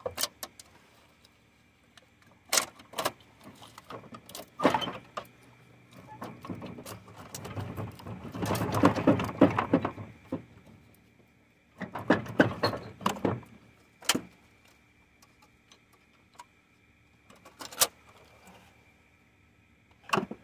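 Metal engine parts clinking and knocking under hand work as the top end of a 3.6 L LLT V6 is dismantled and a cylinder head comes off. Scattered sharp clicks, with two longer runs of rattling clatter around the middle.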